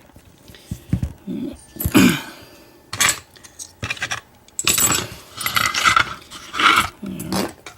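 Irregular metal clinks and clacks of a solid steel padlock and its steel picking tools being handled, busiest in the second half.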